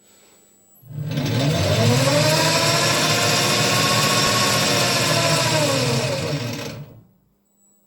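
Boxford lathe running under its 240 V electric motor: switched on about a second in, the whine rises in pitch as it spins up, runs steadily for about four seconds, then falls in pitch as it is switched off and winds down to a stop.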